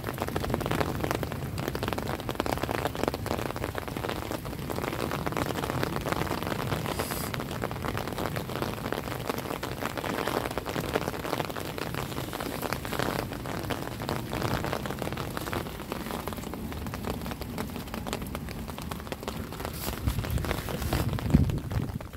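A heavy downpour of rain mixed with hail, pelting steadily on the ground, plants and surfaces in a dense patter. A louder low rumble comes in shortly before the end.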